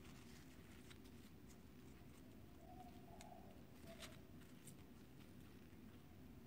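Near silence, with a few faint clicks of plastic beads as nylon beading line is pulled through them. A dove coos faintly in the background about halfway through.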